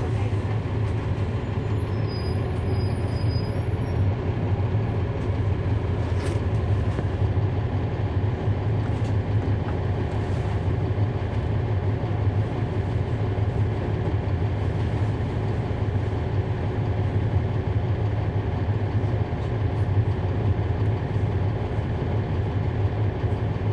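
Cummins ISL9 inline-six diesel of a NABI 40-SFW transit bus running steadily, heard from inside the bus as a low, even hum, with a few faint short clicks.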